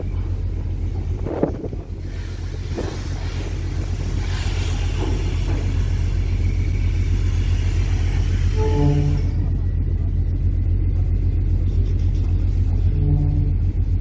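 The ferry Diagoras's engines running with a steady deep rumble as the ship gets under way. Two short, steady pitched tones sound, about nine seconds in and again near the end.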